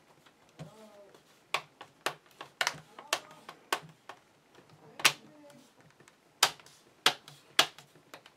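Plastic clips of an HP Pavilion G7 laptop's screen bezel popping into place as it is pressed on along the screen's edge: about a dozen sharp clicks at uneven spacing.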